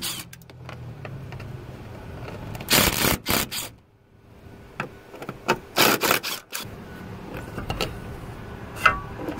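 Screws being backed out of the rear blower motor's metal mounting plate with a long nut driver: scraping and rubbing of the tool on the plate and housing in several short bursts, with a sharp click near the end as the motor is gripped.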